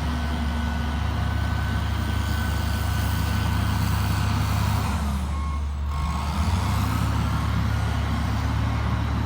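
John Deere bulldozer's diesel engine running steadily under load, with a thin steady whine above it. A little past halfway the sound briefly dips and two short beeps sound.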